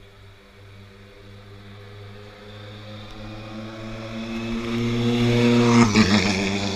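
Ford Fiesta rally car's engine approaching at parade speed, growing steadily louder, then passing close by about six seconds in with a drop in pitch and pulling away.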